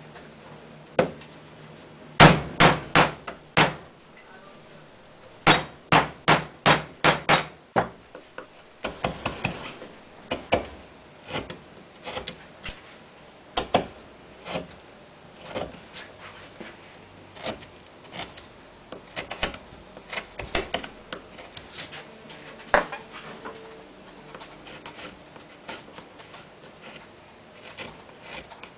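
Wood-carving mallet striking a carving gouge as it cuts into a wooden board: a quick run of about five sharp knocks, then after a short pause about seven more, followed by lighter, irregular taps with gaps between them.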